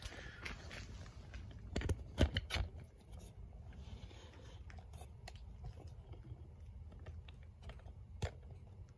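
Handling noise of a phone camera being moved and set down on a concrete floor: a cluster of sharp clicks and knocks about two seconds in, then faint scattered ticks.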